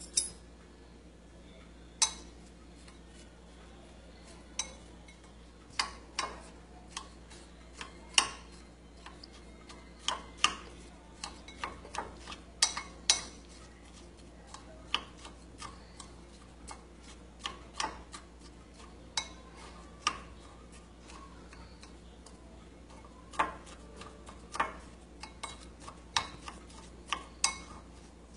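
Metal spoon clinking against a cut-glass bowl while stirring crushed cookie crumbs with melted butter: irregular sharp taps, a few every couple of seconds.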